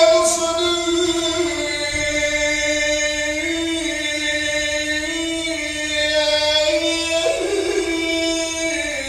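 Muezzin chanting the adhan, the Islamic call to prayer: one long, drawn-out melismatic phrase, the voice holding a high note with small shifts in pitch and a change of note about seven seconds in.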